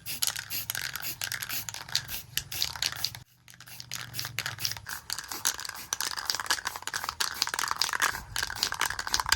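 Dense, rapid crackling and crinkling handling noise that stops briefly about three seconds in.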